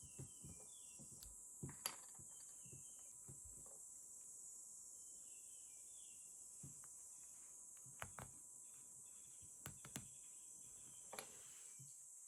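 Faint steady high-pitched insect chorus, with short bird chirps now and then and a few soft clicks and knocks, the sharpest about 2, 8, 10 and 11 seconds in.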